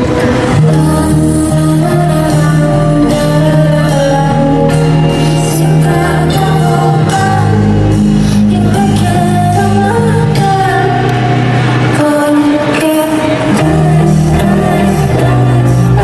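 Live pop-rock band music with a woman singing over held bass notes and drums.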